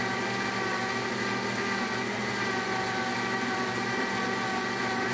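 Blendtec blender motor running steadily at speed, giving an even motor whine with no change in loudness.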